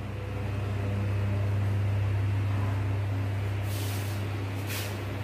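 Steady low mechanical hum of a running room machine such as an air conditioner or fan. Two short scratchy swishes come near the end.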